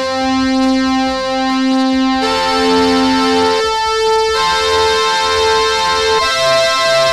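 Roland D50 'Pressure Lead' synth patch, played back as samples on a Korg keyboard: sustained chords of bright, overtone-rich notes, with the chord changing every second or two.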